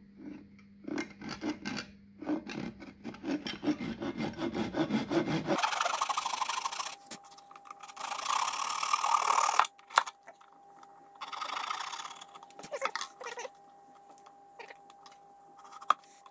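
Hand saw cutting through the wooden ukulele body where the neck joins it: a run of short, rhythmic strokes, then longer, harsher rasping strokes with pauses between them.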